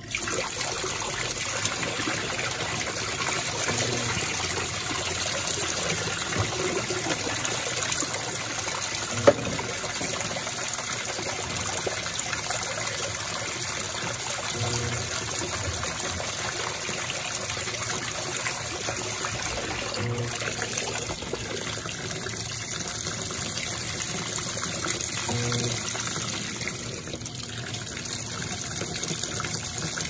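Electrolux LT12F Perfect Wash Turbo top-load washing machine in its rinse: a steady stream of water gushing into the tub from the top, with a low pulse about every five seconds and one sharp click about nine seconds in.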